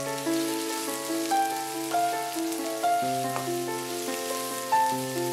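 Background music, a gentle melody of held notes changing every half second or so. Under it, chopped onions sizzle in hot oil in a wok as a faint steady hiss.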